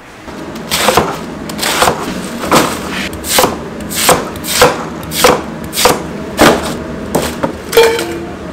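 Knife slicing thick rounds off a Korean radish on a cutting board: about a dozen crisp cuts in an even rhythm, a little under two a second. A short ringing clink comes near the end.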